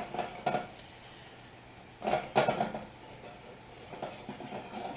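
Light clatter of a frying pan on the stovetop: a few short knocks at the start, then a louder cluster of knocks and scrapes about two seconds in.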